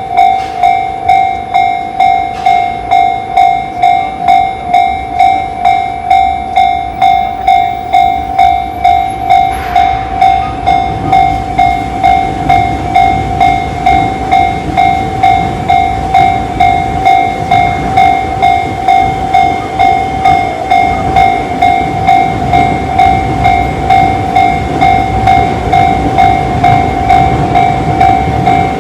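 Tobu Railway level crossing warning bell (Tobu tone C, the Tojo-line type) ringing: a steady electronic ding repeating about three times every two seconds. From about ten seconds in, a train rumbles over the crossing underneath it.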